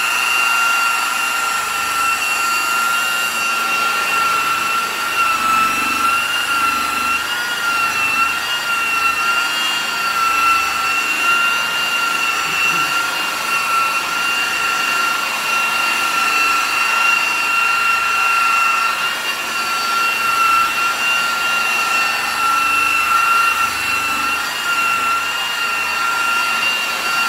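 Polishing buffer with a wool pad running steadily, its motor giving a high, even whine, while compound is buffed into a plastic headlight lens.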